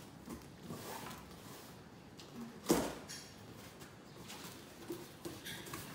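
Cardboard box being cut open and its flaps pulled apart: faint scraping and rustling of cardboard and packing tape, with one sharp, louder rip or knock near the middle.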